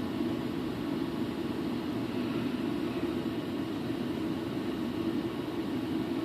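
Steady whirring hum and hiss of background noise with no distinct events, strongest in a low band and unchanging throughout.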